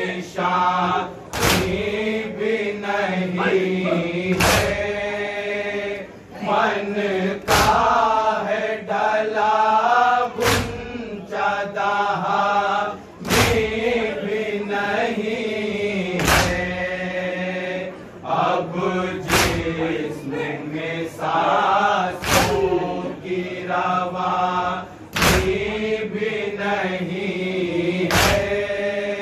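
A lead reciter and a crowd of men chanting a nauha, the Muharram lament, in unison. About every three seconds the crowd's hands come down in a loud collective slap of matam, the rhythmic chest-beating of Shia mourning.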